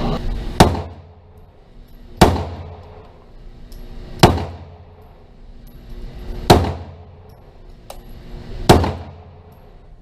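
Five single handgun shots fired at a slow, even pace, about two seconds apart, each a sharp crack with a brief echoing tail.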